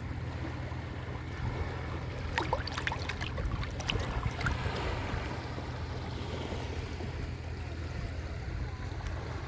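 Small sea waves washing on a beach, with a steady low rumble underneath. A short cluster of sharp splashes about two and a half seconds in.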